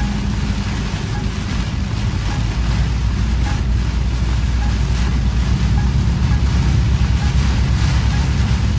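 Heavy rain hitting the windshield and cab of a moving vehicle, with a steady low engine and wet-road drone underneath.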